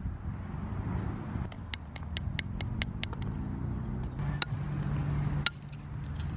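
Deer antler billet striking the edge of an obsidian axe head: a quick run of about eight sharp, glassy clinks, then a few more spaced taps. The small antler tool detaches small flakes precisely, refining the edge. A low steady hum sits underneath.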